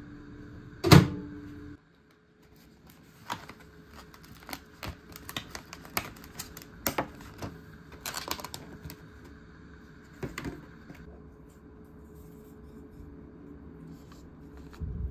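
Microwave oven door unlatched and pulled open with one loud click about a second in. Then a run of clicks and crackles as the clear plastic lid of a takeaway food tray is handled and snapped open, fading to light handling noise near the end.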